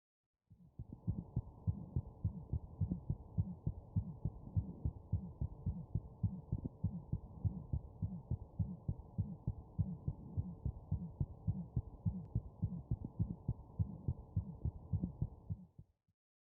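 Heartbeat heard through a wireless stethoscope: muffled, even, quickly repeating thuds with nothing in the high range. It is an abnormal heart sound. It starts about half a second in and cuts off near the end.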